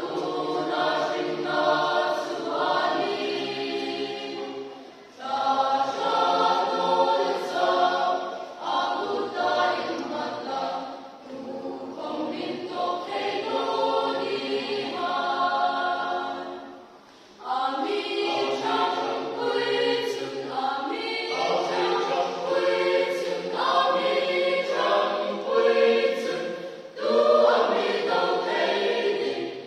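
Mixed choir of men's and women's voices singing a hymn in harmony, its phrases broken by two short breaths, about five and seventeen seconds in.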